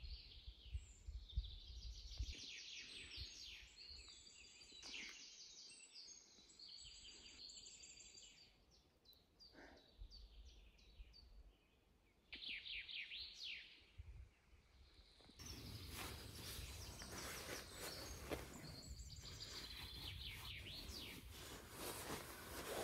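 Faint birdsong: several songbirds singing and calling, with a quick trill of repeated notes about twelve seconds in. From about fifteen seconds a soft, steady rustling hiss joins the birds.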